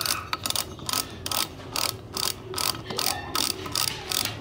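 Ratcheting Phillips screwdriver clicking in short bursts, about two to three a second, as it backs out the small screws holding the diaphragm lever in a gas conversion kit's regulator.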